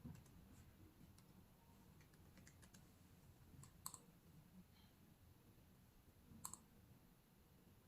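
Near silence with a few faint, scattered clicks of a computer being operated, single clicks every few seconds and a short run of light ticks around the middle.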